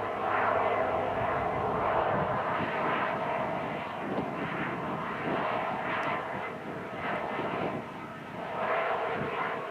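Heavy diesel demolition machinery running: a steady rushing engine noise with a constant hum, swelling and easing every couple of seconds.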